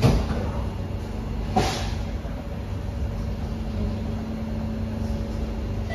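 Sliding doors of a C151B metro train carriage thudding shut, followed about a second and a half later by a second, shorter knock, over the steady hum of the carriage.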